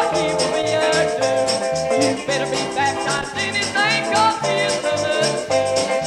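Gospel group singing from a 1990s cassette recording, the voices wavering with vibrato over a bass line and a steady beat.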